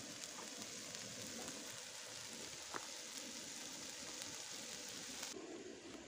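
Food sizzling in a hinged grill pan on a portable gas cartridge stove: a steady frying hiss with fine crackles that cuts off suddenly about five seconds in.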